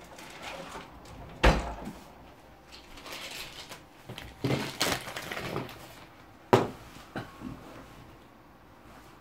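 Objects handled on a tabletop: two sharp knocks about five seconds apart, with a short stretch of clatter and rustling between them.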